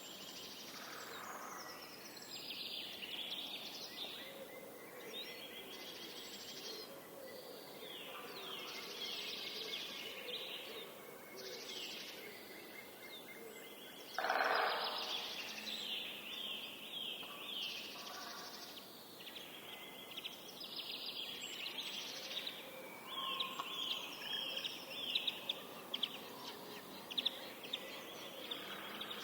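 Forest birdsong: several birds sing and call over one another. One louder, lower call comes about halfway through, and quick, sharp notes come in toward the end.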